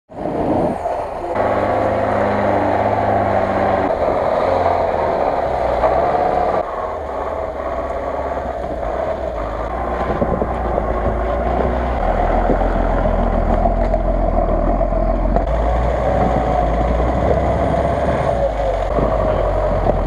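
Off-road vehicle engines running under load in snow and mud, heard through a string of short clips, so the engine note changes abruptly at each cut.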